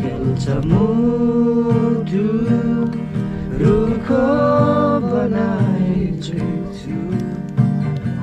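A voice singing a melody with held notes to an acoustic guitar accompaniment.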